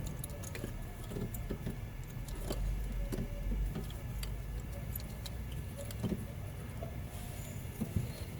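Scattered small metallic clicks and taps of engine parts and connectors being handled during fuel-injector reinstallation, over a low steady hum.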